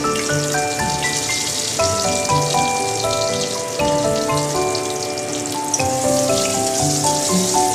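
Eggplant pieces sizzling as they fry in hot oil in a wok, a steady hiss. Background music plays over it: a melody of short notes over a steady bass beat.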